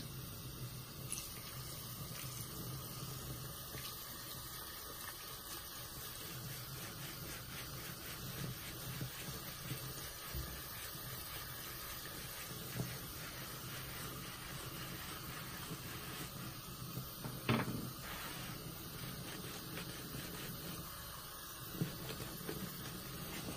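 Tap water running steadily into a foamy sink while a large, coarse-pored grout sponge is soaked and squeezed in the soapy water, with a few brief wet squelches, the loudest about two-thirds of the way through.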